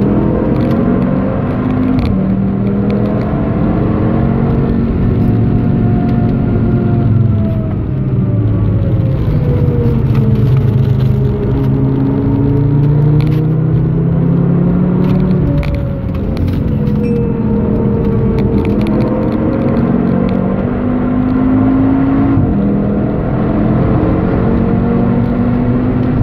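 Tuned 2013 Audi TT RS's turbocharged 2.5-litre five-cylinder engine heard from inside the cabin under hard driving on track. The pitch climbs under acceleration, sags through the middle as the car slows for corners, and drops suddenly at a few gear changes.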